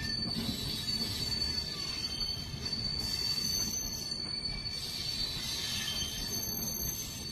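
Passenger express train running on the rails, its wheels giving a steady high-pitched squeal over the rumble of the coaches.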